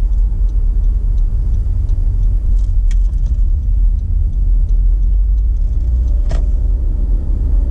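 Steady low road and engine rumble of a car driving along a city highway, heard from inside the moving car, with a sharp click about three seconds in and a louder knock a little after six seconds.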